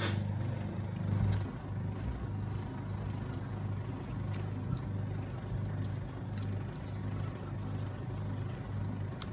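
A steady low hum throughout, with faint scattered scrapes and taps of a spatula spreading thick masala over fish on a steel plate.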